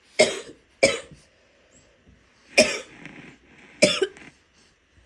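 A woman's wet coughs: four sharp coughs, the first two close together, then two more spaced about a second apart.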